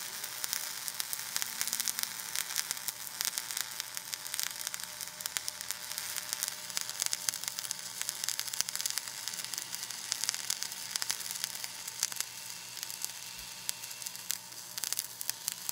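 Flux-cored wire-feed welding arc crackling and sizzling steadily with rapid fine pops, laying a vertical-up fill pass on a steel plate qualification coupon.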